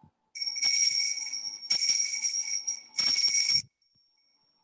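Altar bells shaken in three rings, each about a second long or less, with a bright high jingling ring, marking the elevation of the host just after the consecration.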